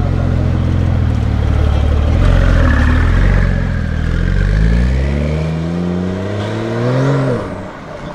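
A supercar's engine running loud and low, then revving up in one long rising sweep from about halfway through, before the pitch and level drop off sharply near the end.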